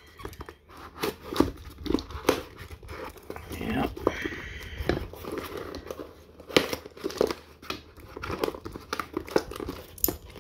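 Knife blade slitting the packing tape on a cardboard shipping box, then the tape being pulled off: a run of sharp scratches and snaps with crinkling and tearing of the tape.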